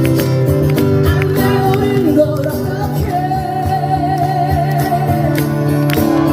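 A song played live by a band with guitar, a held, wavering melody line over steady chords and light regular percussion.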